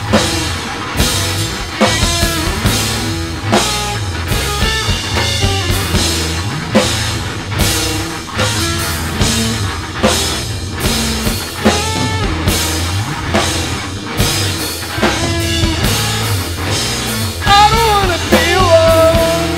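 Live rock band playing: a Pearl drum kit keeping a driving beat, bass guitar and electric guitar. Near the end the electric guitar plays bent, wavering notes.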